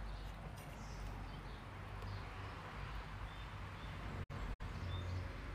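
Steady background noise with a low hum and a few faint, short high chirps, with two brief dropouts in the audio.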